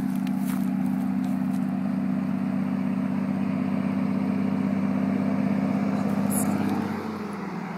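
A motor vehicle's engine running at a steady pitch, dipping slightly in pitch and level near the end.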